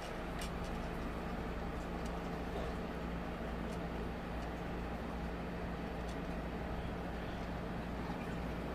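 A steady low hum over constant background noise, with a few faint clicks.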